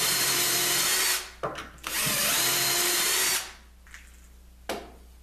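Hand drill boring a quarter-inch dowel hole into the edge of Baltic birch plywood through a Dowelmax jig's steel guide bushing. It runs in two bursts of about a second and a half each, then stops. A single knock comes about four and a half seconds in.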